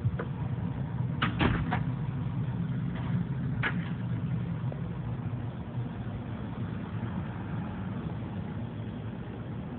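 Metal door lever and latch clicking: three quick clicks close together, then one more a couple of seconds later, over a steady low hum.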